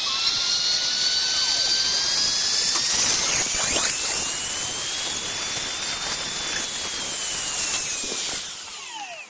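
A small high-speed electric motor whining, its pitch rising over the first few seconds, holding, then falling away before it stops near the end.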